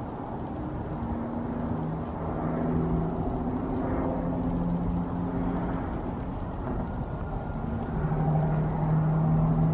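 A motor vehicle engine running with a steady low hum that grows louder about eight seconds in.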